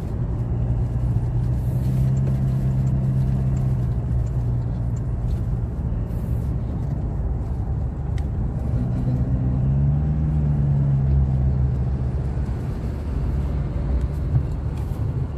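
Car engine and road noise heard from inside the cabin while driving, a steady low hum. A little past halfway an engine note rises and then settles back.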